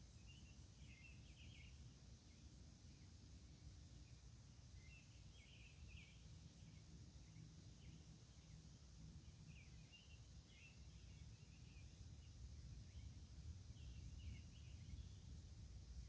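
Faint outdoor night ambience: a low distant rumble, with short chirping calls in little clusters every second or two and a faint steady high insect-like buzz.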